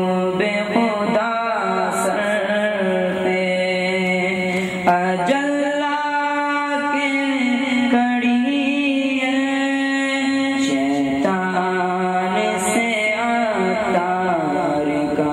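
A young man reciting a naat, a devotional Urdu poem, into a microphone in long drawn-out sung phrases with ornamented turns. The voice steps up to a higher held note about a third of the way through and drops back to the lower one about two-thirds of the way through.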